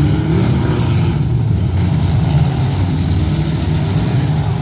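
Several full-size demolition derby cars' engines running at once: a steady low rumble, with engines revving up in pitch over it.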